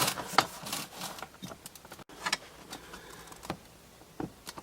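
Scattered clicks and knocks of plastic door parts being handled and pressed together as a washing machine door's glass bowl is worked into its frame, not yet lining up.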